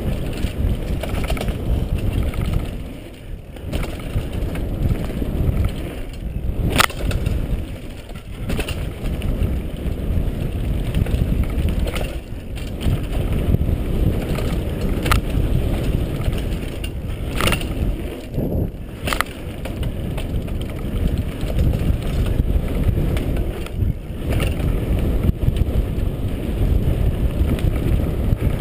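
Mountain bike riding fast down a dirt forest trail: a steady low rumbling noise from the ride, broken several times by sharp clacks and rattles as the bike hits bumps.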